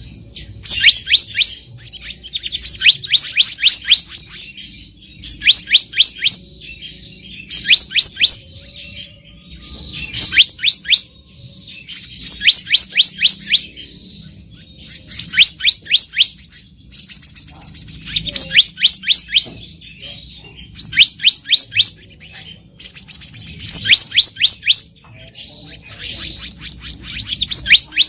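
Black-naped monarch calling: bursts of about a second of rapid, sharp, high notes, repeated every two to three seconds.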